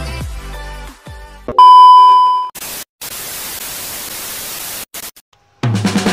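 Intro music stops, then a loud steady test-tone beep sounds for about a second, followed by about two seconds of TV static hiss. After a brief silence, background music starts near the end.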